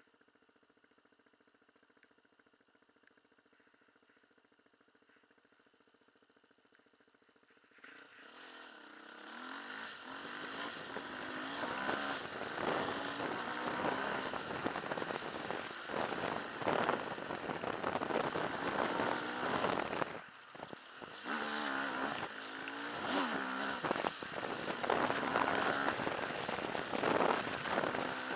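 Near silence for about eight seconds. Then an off-road motorcycle engine running under way, its pitch rising and falling with the throttle over a steady rush of noise, with a brief drop about twenty seconds in.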